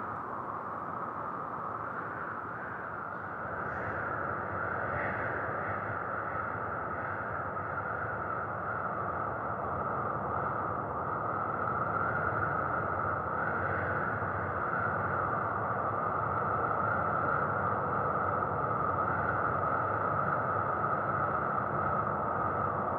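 A steady, muffled rushing noise with no clear tone or rhythm, growing slightly louder a few seconds in.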